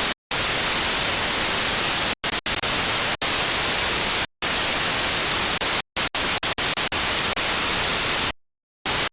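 Loud, harsh static hiss that cuts in and out abruptly. It drops to silence for short instants several times and for about half a second near the end, then comes back briefly.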